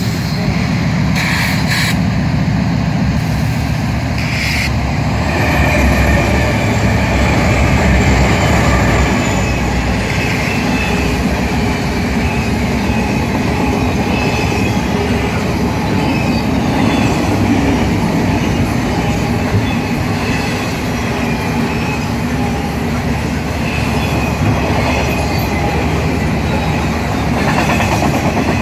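Double-stack intermodal freight train passing at speed on the adjacent track: a steady rumble and rush of steel wheels on rail with some clickety-clack. A thin wheel squeal rises for a few seconds early on, and there are a couple of short knocks in the first few seconds.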